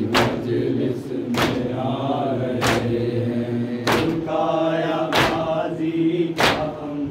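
Men chanting an Urdu nauha (Shia mourning lament) together, with sharp hand strikes on the chest (matam) in unison, evenly spaced about every second and a quarter.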